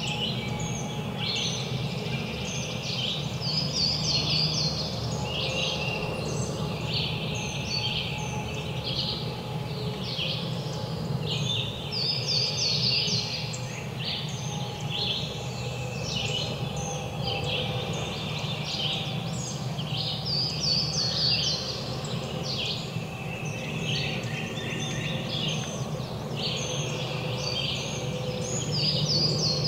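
A chorus of songbirds calling in the woods: many short, overlapping chirping notes with no gap, over a steady low background hum.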